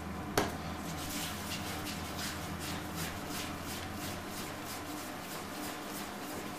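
A hand rolling a ball of bun dough against a floured work surface: soft, rhythmic rubbing strokes, about three a second, with a small knock about half a second in.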